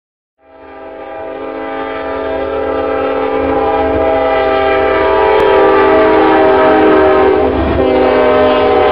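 Diesel locomotive's multi-chime air horn held in one long steady chord, fading in over the first couple of seconds, over a low rumble.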